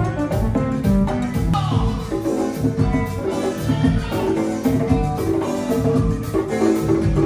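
A Latin tropical band playing, with congas struck by hand over a steady beat and melodic lines on top.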